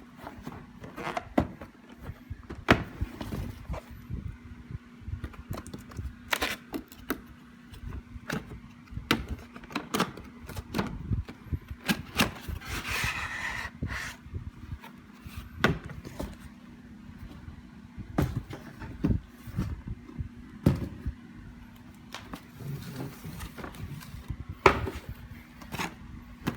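Cardboard box and packaging being handled and unpacked: scattered knocks and taps, with a stretch of rustling about thirteen seconds in, over a faint steady hum.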